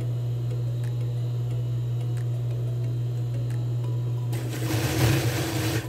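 Industrial sewing machine's motor running idle with a steady low hum and faint regular ticks. About four seconds in there is a louder burst of rustling, lasting about a second and a half, as the fabric is handled at the machine.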